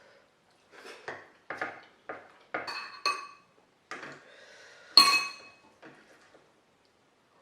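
Cutlery clinking and scraping against a dish during a meal: a run of knocks, some of them ringing, with a brief scrape and the loudest ringing clink about five seconds in.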